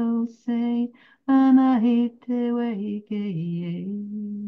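A woman singing a cappella, improvising a wordless song in flowing syllables. It goes in short phrases of held, gently gliding notes with brief breaths between them, and the last note is held long.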